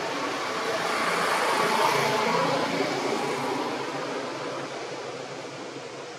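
A vehicle passing, its noise swelling about two seconds in and then fading away.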